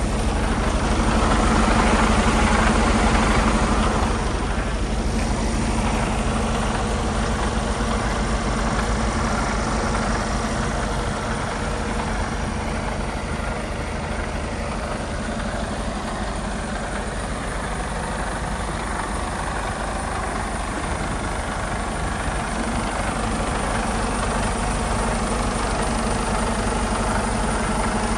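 Mercedes Actros 2445 tractor unit's 12.8-litre straight-six diesel idling steadily, a little louder for a few seconds near the start.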